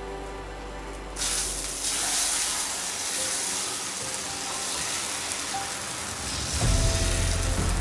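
Dosa batter sizzling on a hot tawa as it is ladled on and spread in circles, the hiss starting abruptly about a second in. Background music plays throughout, and a loud deep rumble comes in near the end.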